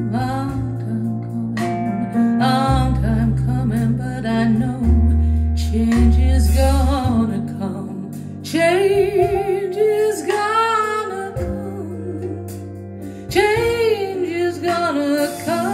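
A female-vocal soul ballad played back through Pylon Diamond 25 floorstanding loudspeakers and recorded in the room. A woman sings long, wavering, drawn-out lines over sustained bass notes and light accompaniment.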